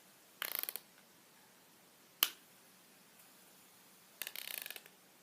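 A spinning fidget spinner's arms striking an object in two short bursts of rapid clattering clicks, with one sharp click between them, as it is pressed against the object to see whether it cuts it.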